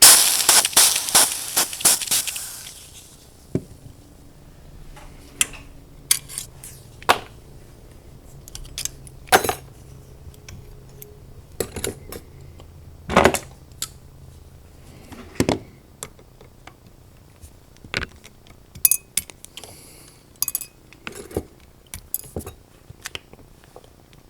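Water hitting the still-hot, freshly soldered joint on a Yamaha YSS-475 soprano sax body: a loud sizzling hiss for about the first two and a half seconds, quenching the joint. Then scattered metallic clinks and taps as the horn and tools are handled.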